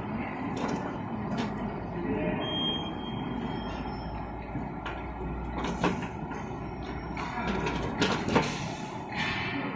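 Automatic labeling machine and its slat conveyor running: a steady mechanical hum with irregular clacks and knocks, the loudest a pair of knocks about eight seconds in.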